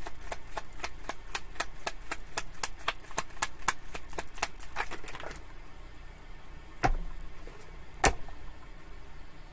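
Tarot deck being shuffled by hand: a quick run of card clicks, about five a second, that stops about five seconds in. Then two sharp taps on the table a little over a second apart, as the deck or cards are set down.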